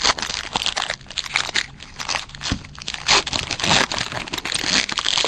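Foil wrapper of a 2012 Topps Tribute Baseball card pack being torn open and crumpled by hand, a run of irregular crinkles and crackles.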